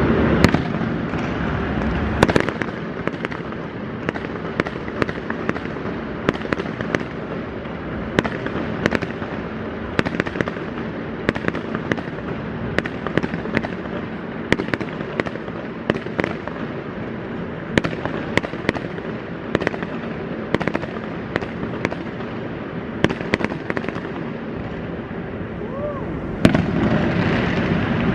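Aerial fireworks bursting in a continuous display: many sharp bangs and crackles at irregular intervals, with loud reports shortly after the start and again near the end.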